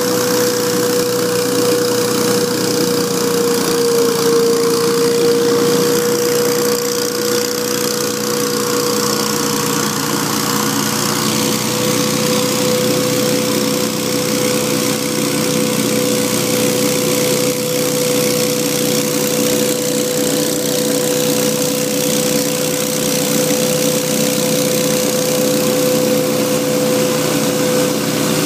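Hurricane 314 stand-on leaf blower running flat out, its engine and fan giving a loud, steady whine over the engine hum and the rush of air, with a slight dip in pitch about four seconds in.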